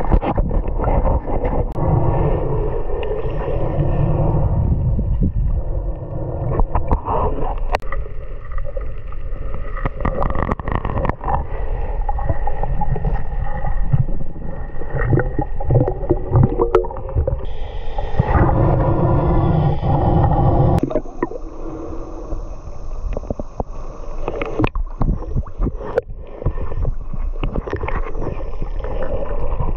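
Muffled water sound from a camera in the water while snorkelling: sloshing and gurgling with scattered knocks. About 21 seconds in, the deep rumble drops away and a thinner hiss takes over.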